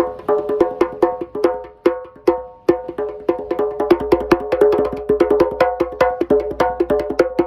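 Djembe played by hand in a fast rhythm of ringing tone and slap strokes, sparser at first and much denser and quicker from about three seconds in.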